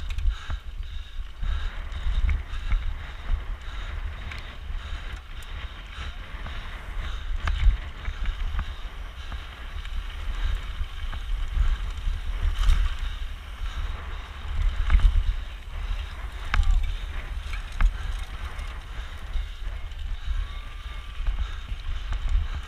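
Wind buffeting an action camera's microphone on a mountain bike descending fast, a low rumble that surges and eases, over the rattle of tyres and bike on rough trail with scattered sharp knocks.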